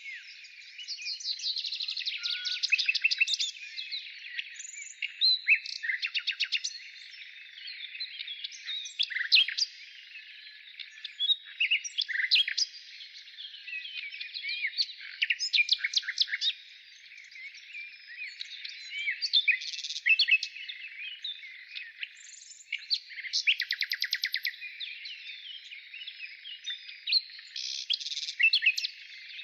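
Several wild birds calling together in a busy chorus of chirps and short whistles, with a few fast trills.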